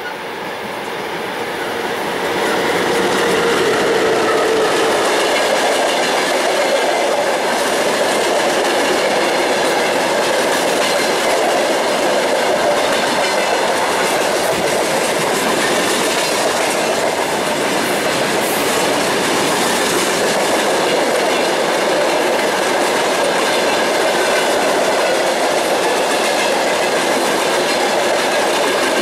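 A loaded freight train of tank cars and boxcars, behind a VL10U electric locomotive, rolling past at speed: a dense, steady noise of wheels on rails. It grows louder over the first three seconds as the locomotive goes by, then holds level as the wagons pass.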